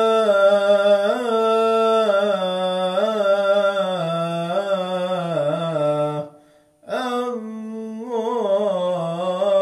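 A man's voice chanting the salâ, the Islamic blessing on the Prophet Muhammad, in long held melismatic notes with ornamented turns. It stops for a breath about six seconds in, then takes up the next phrase.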